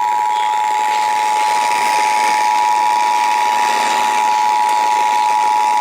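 Emergency Alert System two-tone attention signal: a steady pair of tones just under 1 kHz held unbroken over radio static hiss. It signals that a severe thunderstorm warning is about to be read.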